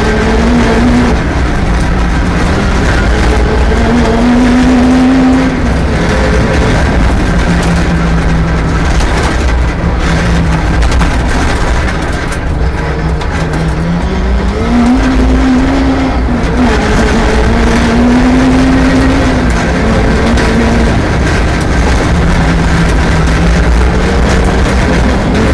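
Rally car engine being driven hard, its pitch climbing as it revs up and dropping back again and again through gear changes and lifts.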